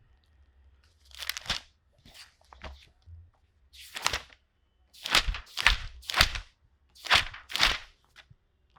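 Paper pages being turned one after another, each turn a short crisp rustle; a few scattered turns at first, then a quicker run of turns about two a second from about halfway through.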